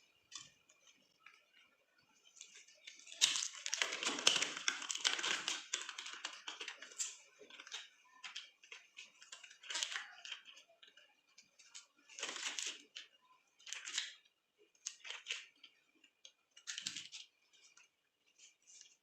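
Rustling and crinkling of crinkly material being handled: a dense stretch of about four seconds starting about three seconds in, then about five short separate bursts.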